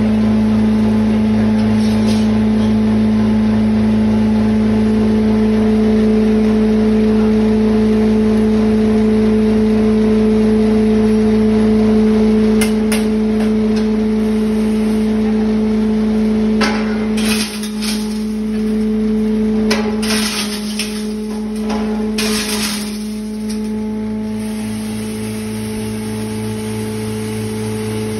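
Half-jaali glass grinder, belt-driven by an electric motor, running with a loud, steady hum. Past the middle comes a run of sharp crashes and crackles as glass bottles are fed into the hopper and crushed.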